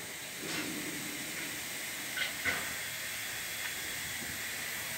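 Steady background hiss, with a couple of faint clicks about halfway through.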